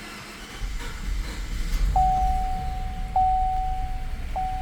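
Gasoline engine of a 2014 Chevrolet Silverado cranking over on DEF-contaminated fuel and starting to catch. The dashboard warning chime dings about every second.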